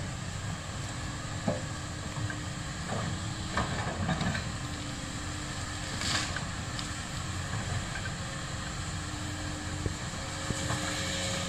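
Komatsu PC200 excavator's diesel engine running steadily, with a few scattered knocks and a short hiss about six seconds in.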